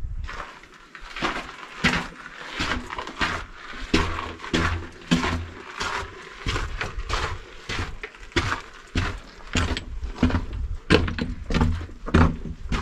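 Footsteps crunching on a gravelly floor inside a narrow stone tunnel, about two steps a second.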